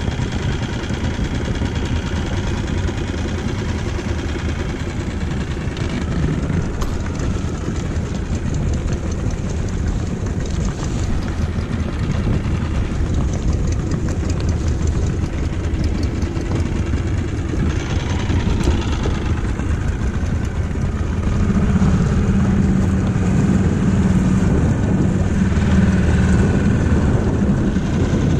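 Small outboard motor running steadily at low speed. About two-thirds of the way through, a steady hum comes in and the sound gets a little louder.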